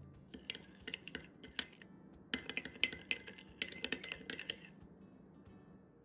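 Metal spoon stirring sauce in a small glass bowl, clinking against the glass in quick runs of taps. The taps come in three spells and stop about five seconds in.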